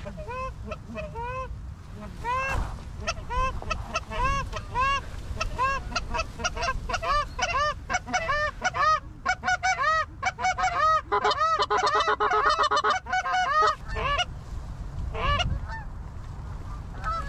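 A flock of Canada geese honking: single arching honks a few per second, building to a dense, overlapping clamour about two-thirds of the way through, then thinning out.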